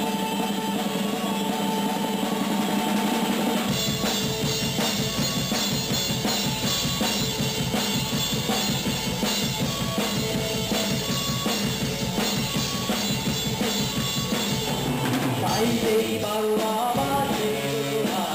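Rock music with a full drum kit; the drums and bass come in a few seconds in.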